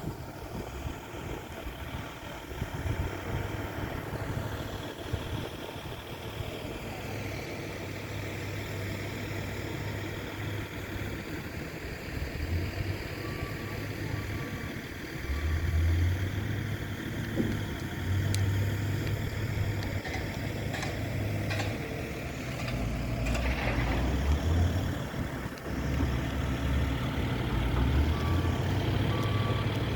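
Diesel engine of a heavy crane running, growing louder about halfway through as it works harder, with a warning beeper sounding in short runs of beeps now and then.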